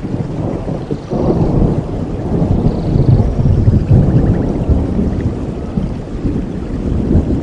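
Rain with a long, rolling rumble of thunder that swells about a second in and keeps rumbling loudly.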